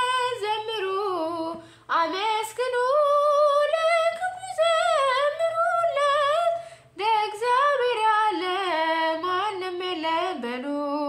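A woman singing an Ethiopian Orthodox mezmur (hymn) unaccompanied, in long phrases with a wavering, ornamented pitch. She breaks briefly for breath about two seconds in and again about seven seconds in.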